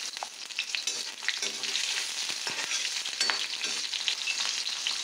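Garlic cloves with cumin and fenugreek seeds sizzling in hot mustard oil in an iron kadhai: a steady frying hiss with scattered crackling pops.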